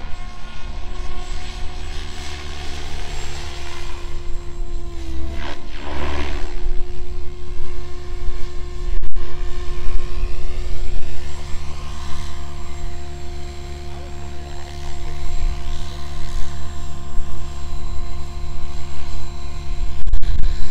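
SAB Kraken 580 electric RC helicopter flying aerobatics on a 12S battery, its motor and gear train giving a steady high whine that dips briefly in pitch a couple of times. The 603 mm rotor blades whoosh, swelling and fading as it manoeuvres.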